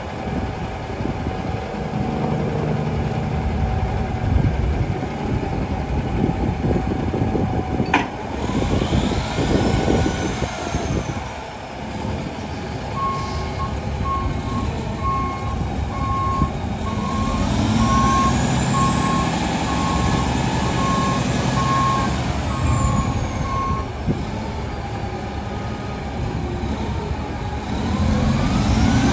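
Semi truck's diesel engine running and revved up and back down three times, the middle rev held for several seconds. A backup alarm beeps steadily for about ten seconds through the middle, and there is a sharp click about eight seconds in.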